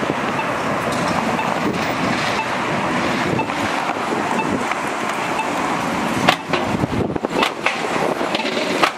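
Street traffic noise as an electric trolleybus pulls up and passes close by, with a few sharp clicks and knocks about six to seven and a half seconds in.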